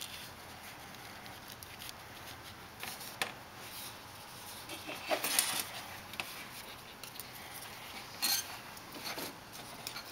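Light handling sounds: a few scattered clicks and rustles of wires, high-temperature wire sleeving and a burner nozzle line assembly being worked by hand on a steel workbench, the sharpest click about three seconds in.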